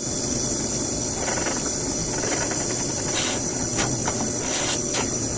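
A power-driven Forstner bit boring a hole through a black walnut doorknob: steady motor noise with a constant high whine, and a few short crackles of cutting in the second half.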